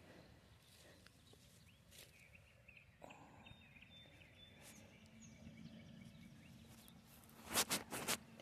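Faint outdoor background with a few faint high chirps, and a low steady hum that comes in about halfway. Near the end, a few brief, sharp rustling thumps as a hand presses soil around a newly set mustard green transplant.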